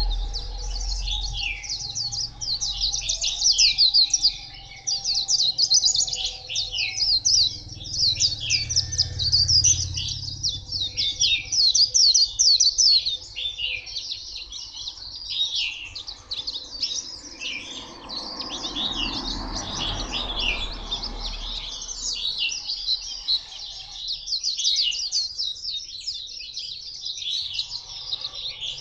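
White-eye singing a long, rapid, high twittering song with almost no pauses, loudest in the first half.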